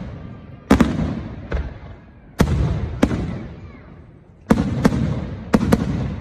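Aerial fireworks shells bursting overhead: about nine sharp bangs in clusters (two together about a second in, another at a second and a half, one at two and a half seconds, then a quick run of four in the second half), each trailing off in a fading echo.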